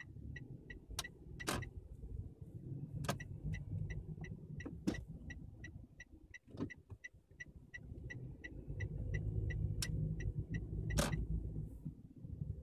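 Car's turn-signal indicator ticking steadily, about three ticks a second, over the low rumble of the engine and road inside the cabin, with a few louder knocks.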